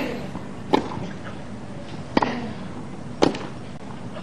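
Tennis rally on grass: racquets striking the ball back and forth, four sharp pocks about a second apart.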